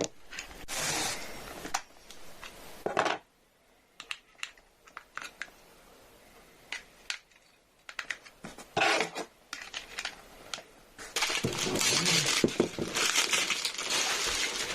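Packaging being handled while a smart TV is unboxed: rustling and crinkling of plastic and cardboard in bursts, with scattered clicks and knocks, and a longer stretch of steady crinkling over the last few seconds.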